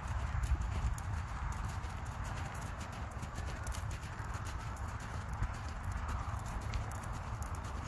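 Lipizzaner horse's hooves trotting on arena sand, a steady run of soft hoof thuds with small clicks and jingles among them.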